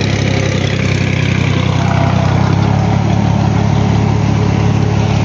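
Diesel tractor engine running steadily while pulling a seed planter across a field, heard close up from the driver's seat; the engine note shifts slightly about halfway through.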